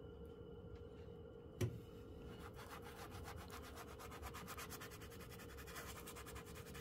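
Bristle brush scrubbing oil paint onto canvas in rapid, even back-and-forth strokes, blending the colour, faint. A single knock about one and a half seconds in, just before the scrubbing starts.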